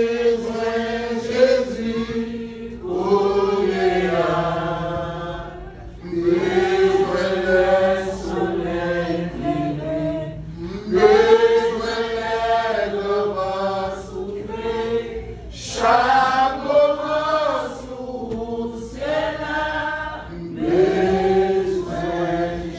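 A group of voices singing together in long held phrases, each a few seconds long with short breaks between them.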